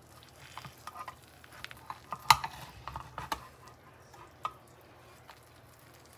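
Metal spatula scraping and clicking against a glazed ceramic baking dish as a portion of baked enchiladas is cut and lifted out, with one sharper knock a little past two seconds in.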